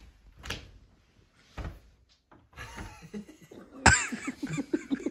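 A person coughs sharply about four seconds in, followed by a few short vocal sounds; before that, only faint rustling and a soft thump.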